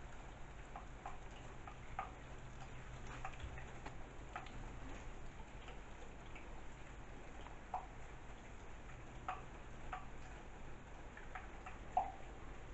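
Leaking tap dripping into a sink: faint, irregular drops plinking roughly once a second, the loudest one near the end, over a low steady hum.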